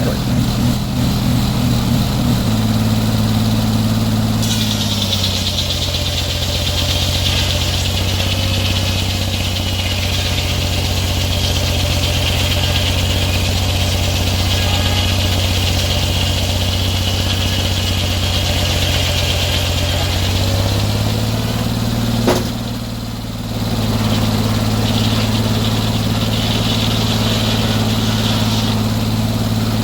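Sawmill engine running steadily. About five seconds in its pitch drops and a high hiss joins it for roughly fifteen seconds, then the engine picks back up. There is a sharp click near the two-thirds mark and a second stretch of hiss near the end.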